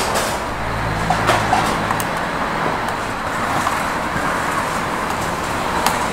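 Steady street-traffic noise with a low engine-like hum, broken by a few sharp clicks.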